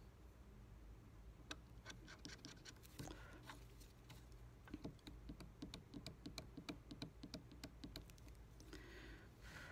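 Steel carving pick scraping and picking at a hard green jewelry carving wax: faint, irregular little scratches and clicks, coming thickest in the second half.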